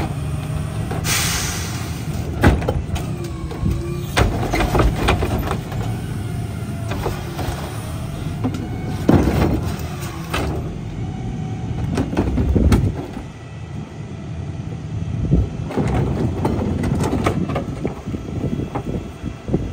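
CNG engine of a McNeilus rear-loader garbage truck running at idle while trash carts are tipped by hand into the hopper: repeated thumps and clatter of bins, lids and bags hitting the hopper. A short hiss about a second in.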